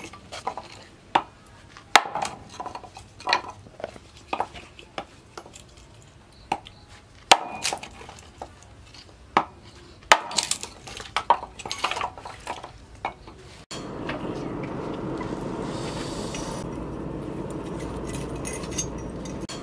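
A hand-forged axe chopping and splitting wood into pointed stakes, with sharp, irregular blows roughly once a second. About 14 seconds in the blows stop abruptly and a steady, even background noise takes over.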